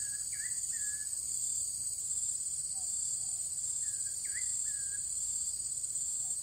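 Steady, high-pitched chorus of forest insects, with two brief groups of short high chirps, one at the start and one about four seconds in.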